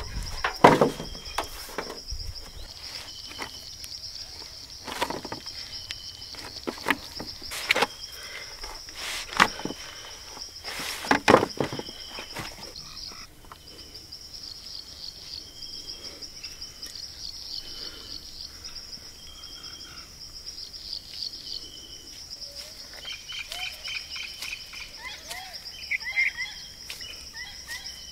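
Insects keep up a steady, high-pitched pulsing buzz with short repeated chirps. Over the first half come a series of knocks as the dough is pressed and slapped against a steel tray, and birds call briefly near the end.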